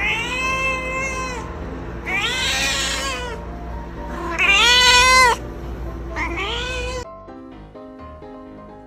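A domestic cat giving four long, drawn-out meows, each rising and then falling in pitch, the third the loudest. About seven seconds in they cut off and music takes over.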